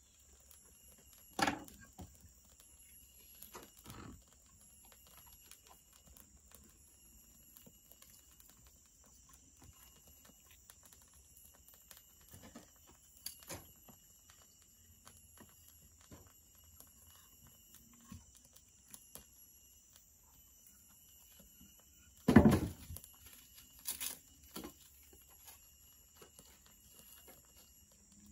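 Sticks of firewood knocking against each other and the metal firebox as they are fed into a wood fire: a few scattered sharp knocks, the loudest cluster about two-thirds of the way through. A steady high-pitched drone of tropical forest insects runs underneath.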